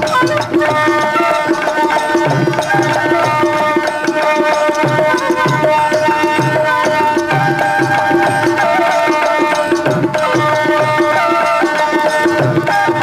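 Alghoza (paired double flute) music: one pipe holds a steady drone while the other plays a stepping melody, over a steady drum rhythm.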